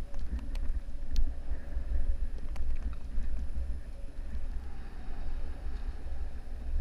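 Wind buffeting the microphone of a camera riding on a mountain bike as it rolls down a dirt trail, with tyre noise on the dirt and a few sharp clicks and rattles from the bike in the first three seconds.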